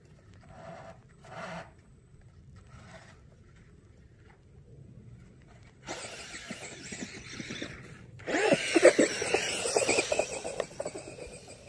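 Traxxas Bandit RC car's brushless electric motor whining as it revs up and down, its paddle tires churning snow. Faint at first, it grows louder about six seconds in and is loudest for the last few seconds.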